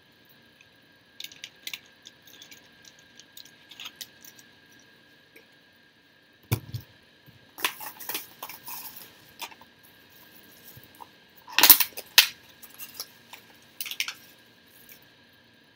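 Food containers and utensils being handled at a table: scattered light clicks and knocks, a dull thump about six and a half seconds in, and a sharp clack a little before twelve seconds, over a faint steady high hum.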